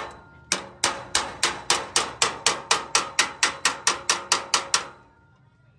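Rapid, even hammer blows on steel, about four to five a second, each ringing briefly; they stop about five seconds in.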